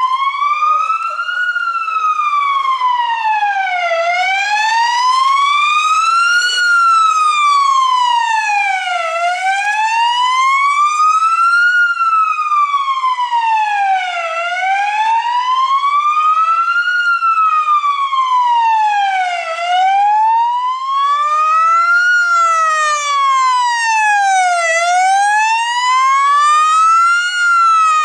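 Electronic emergency siren in a slow wail, its pitch rising and falling smoothly about once every five seconds.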